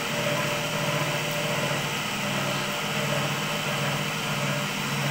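Cotton candy machine running, its spinning-head motor giving a steady mechanical hum with a low drone.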